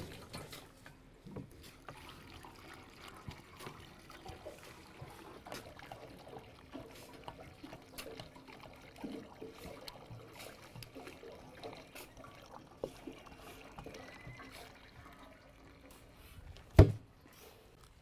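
Water pouring and trickling from a plastic jerrycan into a small road roller's water tank. There is one short, loud knock near the end.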